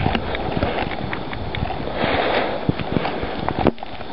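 Footsteps and rustling close to the microphone: a run of irregular clicks over a steady hiss.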